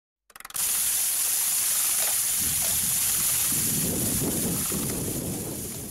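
Water jetting from a garden hose onto a spinning K'nex paddle wheel: a steady hissing rush, joined by a lower, uneven splashing noise from about halfway through.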